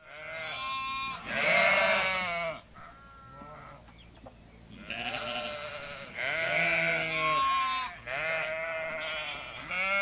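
Sheep bleating, about six long bleats one after another, the loudest about two seconds in and again about seven seconds in.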